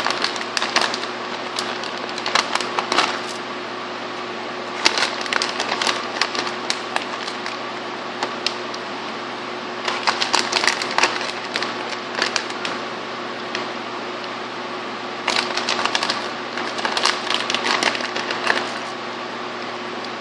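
Bursts of rapid crackling clicks from hands working the chicken and cheese on the counter, coming in several clusters, over a steady machine hum.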